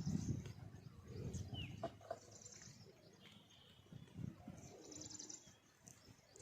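Birds chirping and twittering in short bursts, one giving a brief rising whistle, over low muffled noise.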